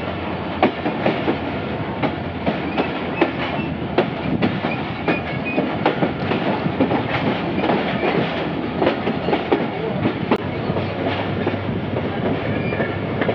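Passenger train running, heard from aboard a coach: a steady rumble of wheels on rails with many irregular clicks and knocks.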